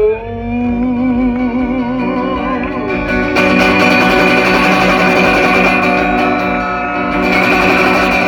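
Live acoustic guitar and a voice holding long sung notes with vibrato, growing fuller and louder about three seconds in.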